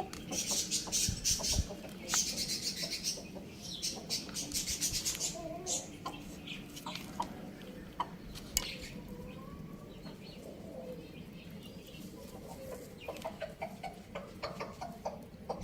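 Chickens clucking now and then with short calls. In the first five seconds or so there are several bursts of hissy, scratchy noise.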